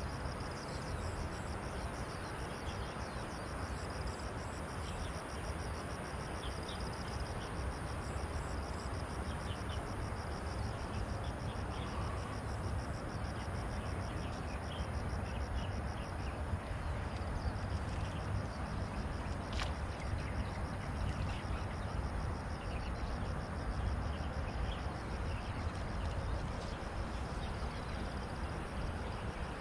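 Open-air riverbank ambience: a steady low rumble, an insect's rapid, evenly repeating ticking through the first half, and scattered short bird chirps, with one sharp click about twenty seconds in.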